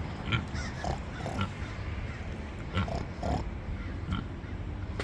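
A pig grunting: short grunts at irregular intervals, several in a few seconds.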